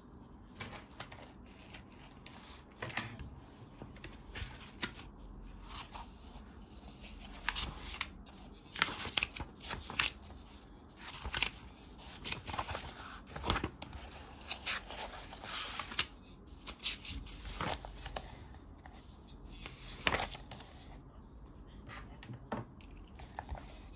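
Pages of a paperback textbook being leafed through and handled: irregular rustles and flicks of paper, with short gaps between them.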